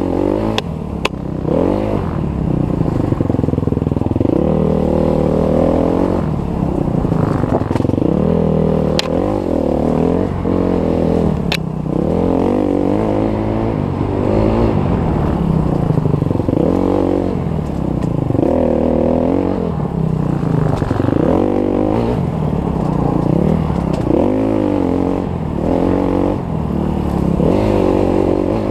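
Dirt bike engine under hard riding, revving up and dropping back over and over as the throttle is worked and gears change. A few sharp clicks stand out over it.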